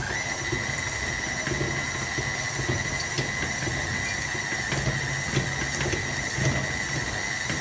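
KitchenAid Artisan stand mixer running with its flat beater through stiff cookie dough as chopped chocolate is poured in. There is a steady high motor whine, which steps up in pitch as the motor comes up to speed at the start, over the uneven churning of the dough in the steel bowl.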